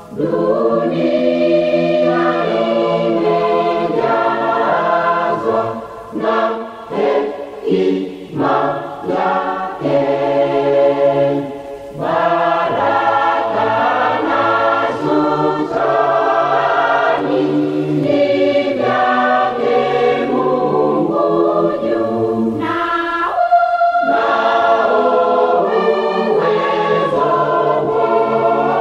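Mixed church choir singing a Swahili hymn in harmony, with a passage of short, separated notes about six to ten seconds in.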